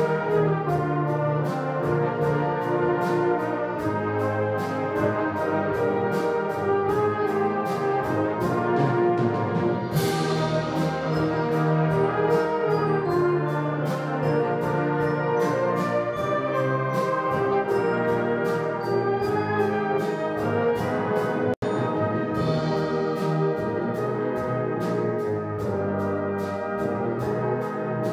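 A fanfare band of saxophones, brass and percussion playing a wind-band piece, full and sustained over a steady percussion beat. A cymbal crash comes about ten seconds in and another a little past twenty seconds, just after the sound cuts out for an instant.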